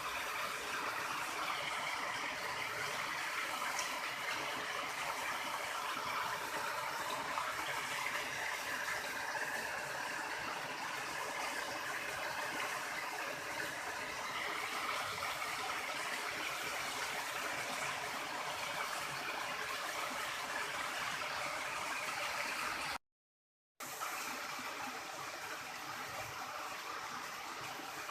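River water flowing steadily, a continuous rushing noise with no change in strength. The sound cuts out completely for under a second near the end.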